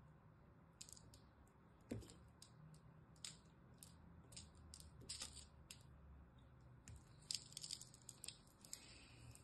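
Small blade cutting and shaving a piece of dry, crunchy soap held in the fingers: soft crisp crackles and crunches at irregular moments, coming thicker near the end as the fingers press into crumbled soap.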